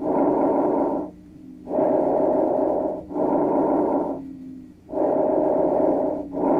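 Lung breath sounds as heard through a stethoscope: slow, regular breaths, each an in-breath running straight into an out-breath, with a short pause between breaths, over a faint steady hum.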